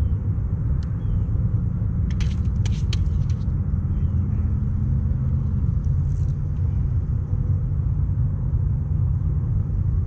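Steady low rumble, with a quick cluster of sharp clicks about two to three and a half seconds in.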